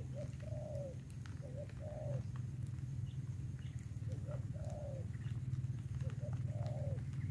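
Spotted dove cooing: four phrases of two short notes and one longer drawn-out note, repeated every couple of seconds. A steady low hum runs underneath.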